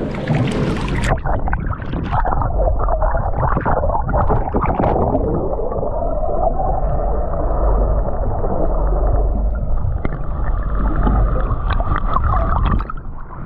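A splash about a second in, then the muffled sound of a camera held under the sea surface: a heavy low rush of moving water with bubbling, everything above a mid pitch cut away.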